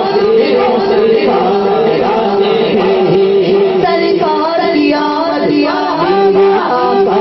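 Unaccompanied male voices singing an Urdu devotional naat into microphones, the melody bending and ornamented over a steady low note held beneath it.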